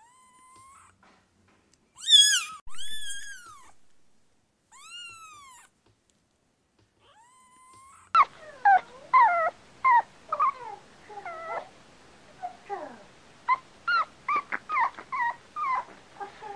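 A kitten meowing in several drawn-out, high calls over the first half. About halfway through, a puppy takes over, whimpering and yelping in quick, short calls that slide up and down in pitch.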